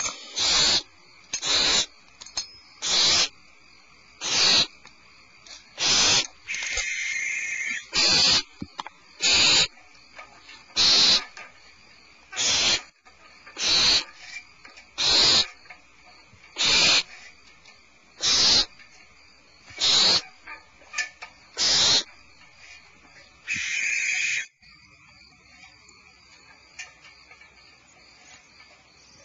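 Barn owl nestlings giving hissing, rasping begging calls, one short rasp about every second and a half with a couple of longer ones, until they stop about 24 seconds in.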